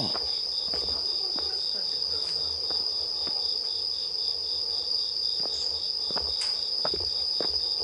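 Night insects chirping: a steady high trill with a second, evenly pulsing chirp just below it, and a few soft knocks scattered through.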